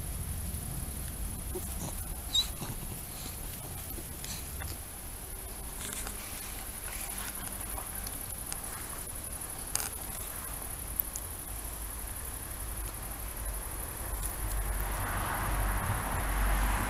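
Steady high-pitched chirring of insects in the grass, with a few sharp clicks and soft taps, and a rustling noise that swells near the end.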